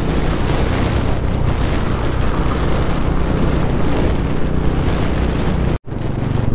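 Wind rushing over the microphone on a motorcycle at highway speed, with the engine's steady low drone underneath. The sound cuts out for an instant near the end, then resumes with the engine hum more prominent.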